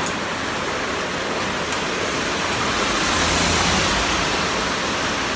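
Handheld butane blow torch burning with a steady hiss as it singes leftover hairs off boiled pig's head skin.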